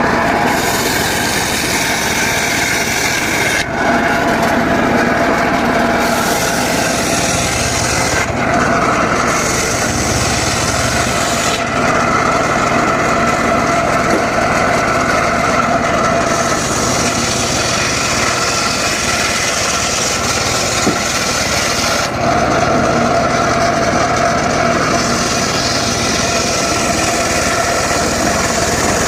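Engine-driven circular saw cutting dry teak wood, the blade's hiss rising and falling over several cuts in a row, with short dips between them while the engine runs steadily underneath.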